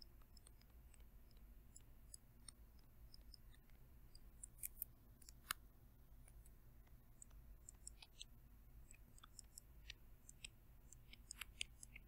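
Near silence with faint scattered ticks and scratches of a stylus writing on a tablet, with a few sharper taps around the middle and near the end.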